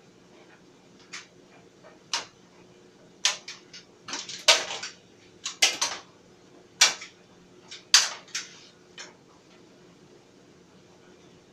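Clothes dryer running with a faint steady hum, while hard items in the tumbling load clink and knock against the drum in irregular clusters about once a second, stopping near the end.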